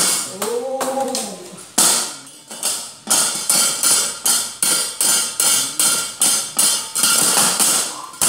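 A wayang puppet master's rapid, rhythmic clatter of strikes on the puppet chest's hanging metal plates (kepyak), at about three strokes a second. A short voice rises and falls in pitch about half a second in.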